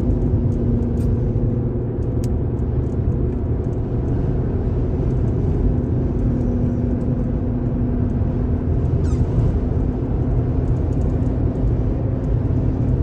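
A vehicle engine running steadily with a constant low hum and rumble.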